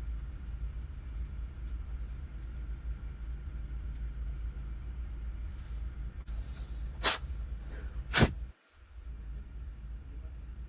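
Two sharp clicks a little over a second apart, most likely a phone's small tactile power switch being pressed. Fainter ticks come before them, over a steady low hum.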